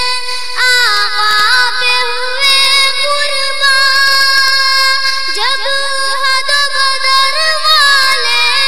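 A child's high voice singing an Urdu naat, holding long drawn-out notes with a run of quick rising ornaments about halfway through.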